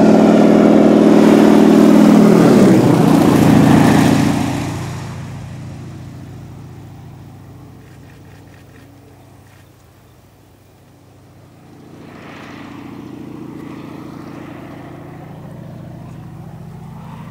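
Thrush S2R crop duster's 600 hp radial engine and propeller passing low overhead, loud, with the pitch dropping sharply about three seconds in as it goes by. The sound then fades into the distance and grows louder again from about twelve seconds in.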